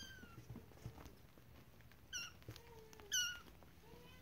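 Six-week-old kittens mewing: a faint falling mew at the start, then two short high-pitched mews about a second apart, the second the loudest, with fainter lower mews between.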